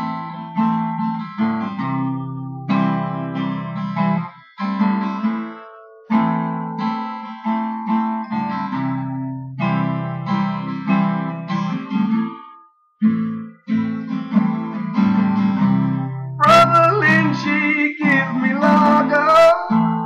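Instrumental passage of a guitar song: strummed guitar chords over a bass line, changing every second or two. The music drops out briefly about 13 s in, and a wavering high melody comes in near the end.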